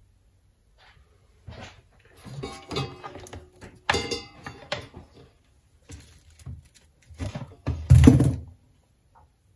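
Handling noise on a wooden workbench as a soldering iron is brought to a wire-wound coil: irregular knocks, clunks and rustles, with a brief ringing knock about four seconds in and the loudest thump near the end.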